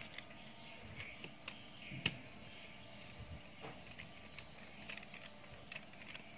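Plastic clicks and knocks as a spray wand is fitted onto the trigger handle of an electric knapsack sprayer, with one sharper knock about two seconds in.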